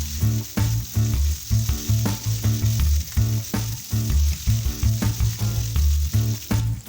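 Food sizzling and frying in a pan, with a steady hiss, under background music with a pulsing bass line.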